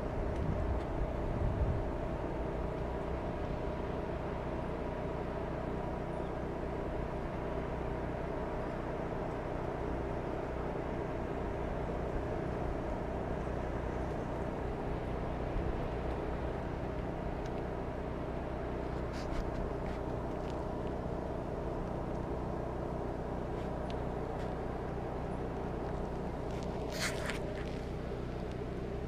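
An engine runs steadily in the background, an even hum with no revving. A few short scrapes of camera handling come near the end.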